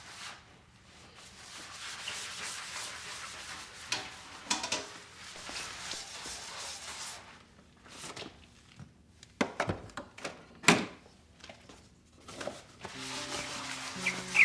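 Rustling and handling sounds in a small room, with a few sharp knocks and thunks about four seconds in and again around ten seconds. Soft background music comes in near the end.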